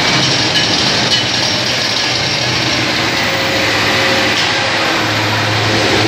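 Keg washer spray heads jetting water inside inverted clear acrylic cylinders: a loud, steady hiss of spraying water. A low hum comes in about five seconds in.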